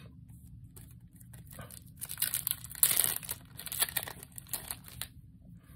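Foil Yu-Gi-Oh booster pack wrapper crinkling and tearing as it is opened. A run of rustling starts about two seconds in, is loudest in the middle, and stops shortly before the end.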